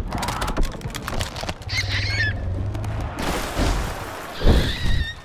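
Two short, warbling, squawk-like animal calls, one about two seconds in and one near the end, over clattering knocks and a scraping slide on snow.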